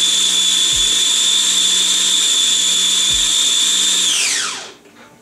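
Small electric food processor running steadily with a high motor whine as it blends a thick peanut ginger dressing. About four seconds in it is switched off and the whine falls away as the blade spins down, followed by a short clack at the very end.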